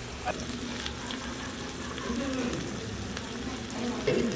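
Meat sizzling on a hot barbecue grill, a steady hiss with scattered crackling pops of fat.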